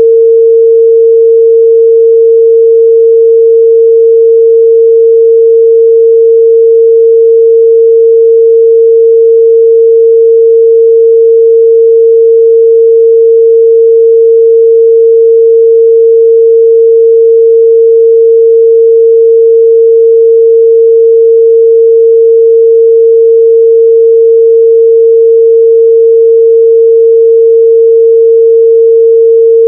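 A steady 456 Hz sine-wave test tone, one pure pitch held unchanged at a loud level.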